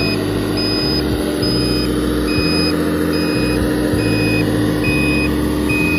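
RC construction truck reversing: its reversing beeper beeps evenly, about once every 0.85 s, over the steady whine of its electric drive motor and a low engine-like rumble. The whine winds down at the very end.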